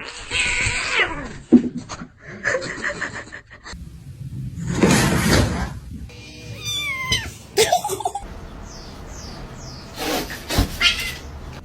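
Cats meowing and yowling in several short calls that glide in pitch, heard across a run of separate clips, with a loud noisy burst about five seconds in.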